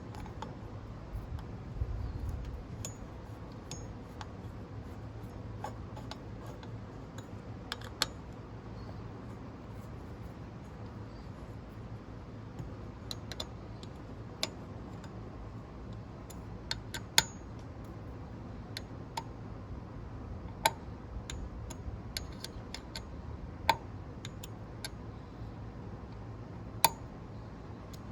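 Scattered sharp metallic clicks and taps, a few at a time and several seconds apart, as screws on a roof-rack bracket are turned in with an Allen wrench. A low steady hum runs underneath.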